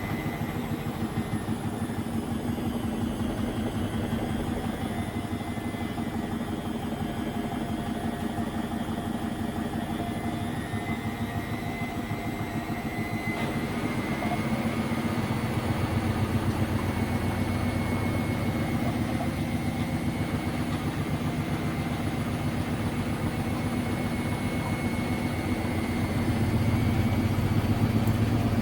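Washing machine spinning with a steady motor whine and a fast, rhythmic rattling drone from the drum shaking the unlevelled machine. It gets louder about halfway through and again near the end as the spin builds.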